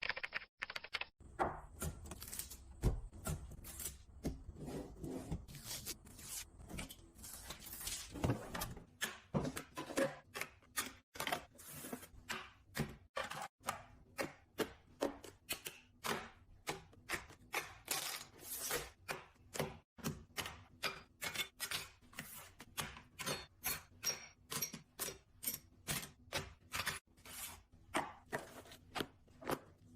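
Household items and storage pieces being handled and set in place: a steady run of short clicks and light knocks, coming about two or three a second from roughly nine seconds in.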